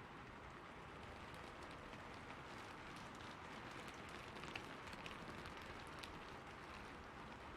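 Rain falling on a rooftop: a soft, steady hiss of rain with scattered ticks of single drops striking, thickest through the middle, and one sharper drop about halfway through.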